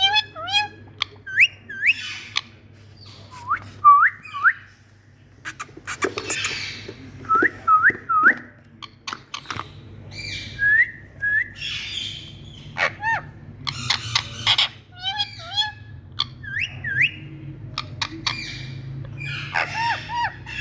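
Pet Indian parrot calling: short, sharply rising whistled notes, often in quick runs of two or three, mixed with sharp clicks and harsher, rougher squawk-like calls.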